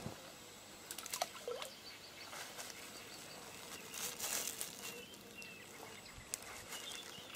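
Faint rustling of a plastic bag and dry reed stalks being handled, in a few short scattered bursts, with a few faint bird chirps behind.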